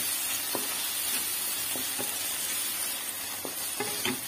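Chopped tomatoes and onions sizzling steadily in hot oil in a kadai, with a spatula clicking and scraping against the pan every so often as they are stirred.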